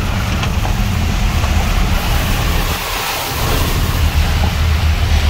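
Car driving through heavy rain on a flooded road, heard from inside the cabin: a steady engine and tyre rumble under an even hiss of rain and water spray. The low rumble briefly drops about three seconds in.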